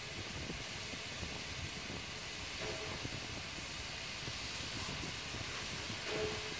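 Steam locomotive standing with a steady hiss of escaping steam. A short faint tone sounds twice, about a third of the way in and near the end.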